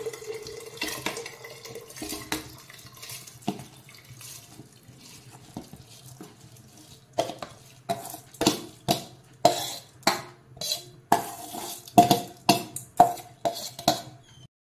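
Soaked rice and lentils sliding wetly out of a steel bowl into a pressure cooker of water. From about halfway in, a metal spoon scrapes and knocks against the steel bowl and cooker about twice a second to clear out the last grains.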